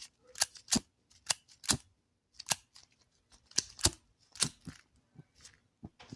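Short, sharp clicks and snips from working on a vintage lighter by hand, about a dozen of them at an uneven pace.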